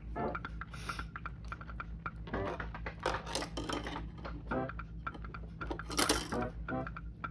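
Hard plastic model-kit sprue clicking and rattling as it is picked up and handled, with a busy cluster of clatter in the middle and another near the end.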